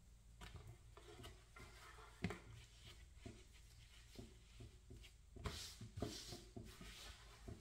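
Faint rustling and small taps of a cross-stitch project being handled, with a sharp tap about two seconds in and a short spell of crinkly rustling about five and a half seconds in.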